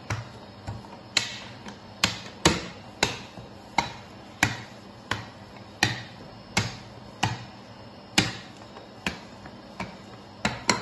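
A handled rolling pin knocking and clacking against the tabletop as dough is rolled out, one sharp clack with each stroke, about every half second to a second.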